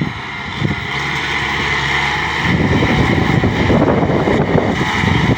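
Engine of a heavy farm machine running steadily, with a louder rough rumble joining about halfway through.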